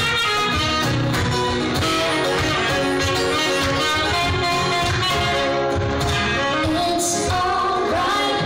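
Live band playing: a saxophone carries the melody over guitar and a steady beat, with a woman's singing voice near the end.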